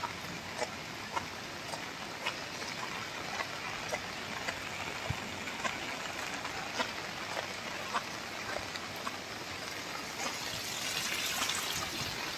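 Steady heavy rain with scattered drips and splashes landing close by, a little louder near the end.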